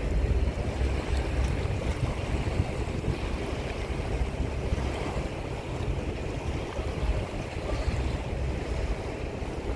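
Wind buffeting the microphone, an uneven low rumble over a steady wash of outdoor harbour noise.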